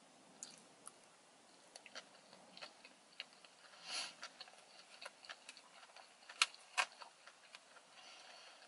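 Quiet, close-up chewing of a chicken teriyaki sushi roll: scattered small mouth clicks and soft smacks, with two sharper clicks a little past the middle.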